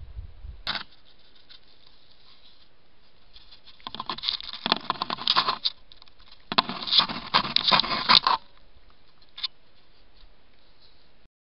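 Crackling rustle and scratching in dry grass close to a trail camera, in two bursts of about two seconds each and a brief one after, with a sharp click about a second in.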